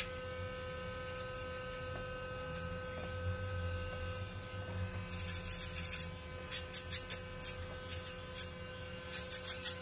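Electric hair clippers running with a steady buzz while cutting hair over a comb. From about five seconds in, a run of short, sharp crackles repeats as the blades bite into the hair.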